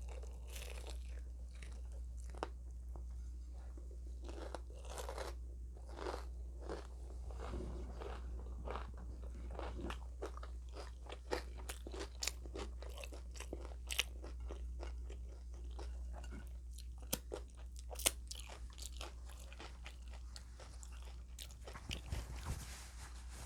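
Close-miked eating: repeated crisp crunches and chewing of fried breakfast food such as bacon or hash browns, over a steady low hum.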